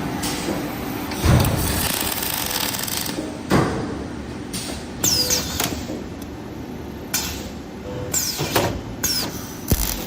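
Corrugated fin forming machine running steadily, with a few sharp metal clanks and several short squeals that fall in pitch.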